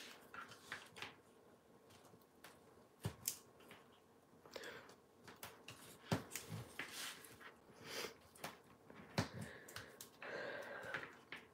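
Soft paper-handling sounds of cardstock tabs being folded and creased: scattered faint clicks and rustles. Near the end, a short rasp as double-sided tear-and-tape is pulled from its roll.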